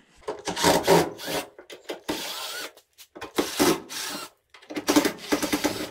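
Cordless drill backing screws out of a dryer's sheet-metal cabinet, in four short runs of about a second each with brief pauses between.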